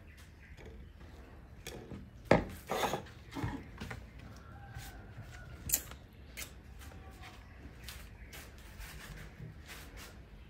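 Scattered small clicks, knocks and crunches of a baby macaque eating and handling food on a wooden table, with a cluster of louder knocks about two to four seconds in and a sharp click near six seconds in.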